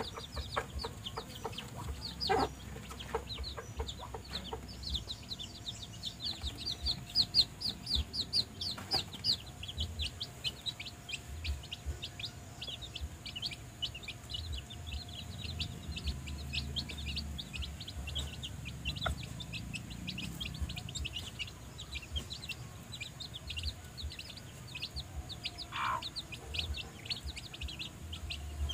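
A brood of young chicks peeping without pause, a rapid stream of short high cheeps, with the mother hen clucking low now and then.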